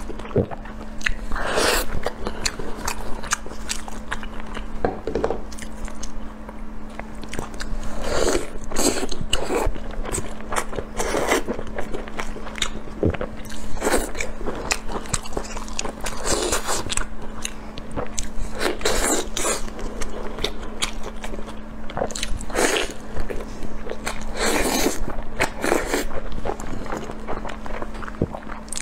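Close-miked eating sounds: biting, chewing and wet smacking of the lips while tearing at and eating pieces of glazed braised meat, in irregular clusters. A steady low hum runs underneath.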